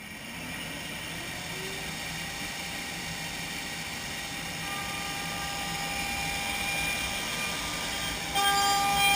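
Format4 CNC machining centre running: a steady high whine of several tones over a rushing noise. About eight seconds in it steps up louder, with the high tones stronger.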